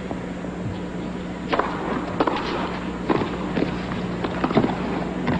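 Tennis rally on an indoor court: a serve about a second and a half in, then a string of sharp pops of racket on ball and ball bounces, roughly one every half second.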